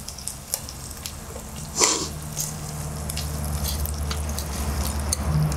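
Pork belly and vegetables sizzling on a tabletop grill plate, with light clicks of chopsticks against the plate and a brief louder sound about two seconds in.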